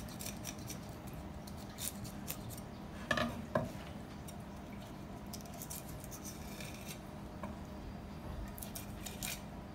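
Faint scattered clicks and scrapes of a long kitchen knife working a fish on a wooden cutting board, over a steady low hum; the loudest knock comes about three and a half seconds in.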